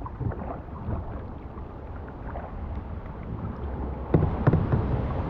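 Steady rushing of wind and heavy rain on the microphone, with a few knocks a little after four seconds in.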